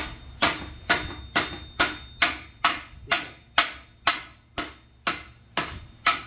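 Hammer blows on a steel rear trailing arm, driving out a torch-heated old rubber bush: about fourteen sharp metallic strikes at a steady pace of roughly two a second, each ringing briefly.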